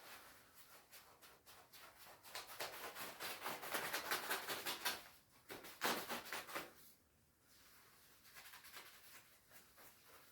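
Crisp rustling and crackling of a shiny down jacket's fabric being handled, growing louder from about two seconds in and dying down after about seven seconds.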